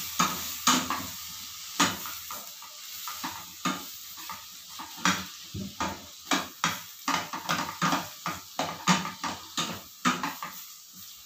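A slotted spatula stirring and tossing broccoli florets in a non-stick frying pan: irregular scrapes and clacks against the pan, over a faint sizzle.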